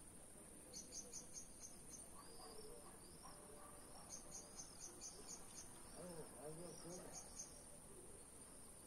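Faint evening outdoor ambience: short bursts of rapid high chirping over a steady high-pitched whine, with faint distant voices about six seconds in.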